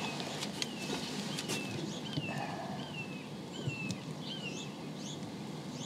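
A small bird calling over and over, a short falling chirp about twice a second, over a faint steady tone, with a few light clicks.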